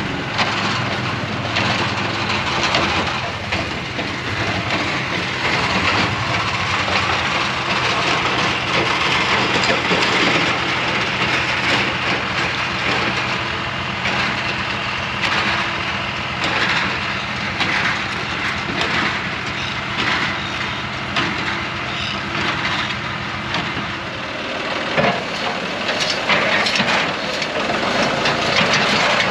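John Deere 24T square baler running behind a tractor, its plunger clacking and crunching as it packs hay into the bale chamber, over the steady drone of the tractor engine.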